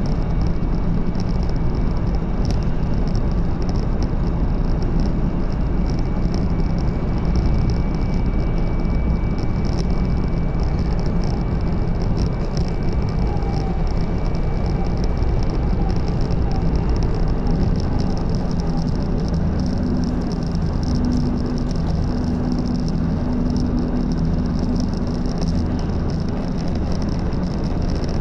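Running noise of a 500 Series Shinkansen heard from inside the passenger car at speed: a steady, loud rumble with hiss. A low steady tone joins about two-thirds of the way through.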